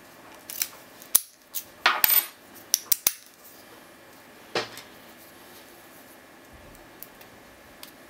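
Small metal objects, the padlock's key and lock picks, clinking and clattering against a wooden tabletop as they are set down and picked up: a quick run of sharp clinks in the first three seconds, one more about four and a half seconds in, then a few faint ticks near the end.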